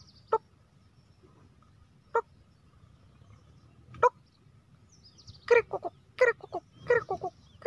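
A man imitating a grey francolin's (teetar's) call through his nose, pressing on his chest: three short single notes about two seconds apart, then a quick run of short notes in the last two seconds. It is the call used in the forest to lure a lone calling male partridge.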